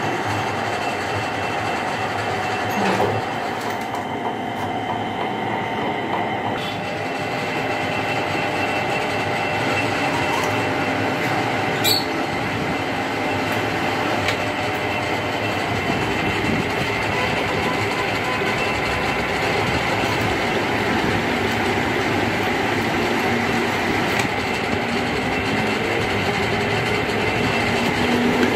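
Belt-driven metal lathe with a stepped cone pulley running, its spindle turning a steel workpiece against the cutting tool: a steady mechanical rumble and rattle with a faint even whine. There is a single sharp click about twelve seconds in.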